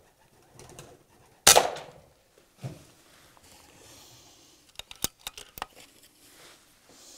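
A single shot from a .22 Air Arms PCP air rifle about a second and a half in, a sharp crack with a short ring after it, followed about a second later by a dull thud. A quick run of sharp clicks comes around five seconds in, and feral pigeons coo faintly in the barn.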